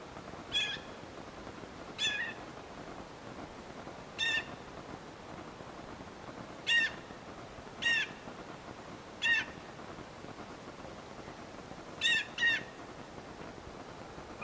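Turkey calls: about eight short single notes, each slightly falling, at uneven gaps of one to two and a half seconds, with the last two close together near the end.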